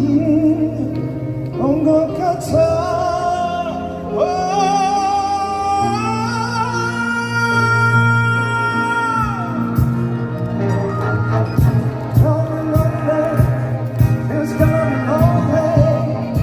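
Song with a solo singer holding long, wavering notes over a band backing. Drum beats come in at a steady pulse about ten seconds in.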